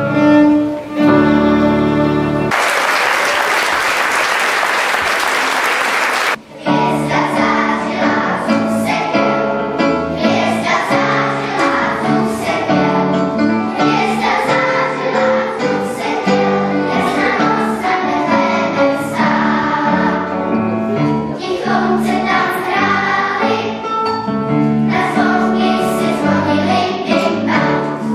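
A short ending of music with strings, then applause for about four seconds. After that a children's choir sings with violin and guitar accompaniment to a steady beat.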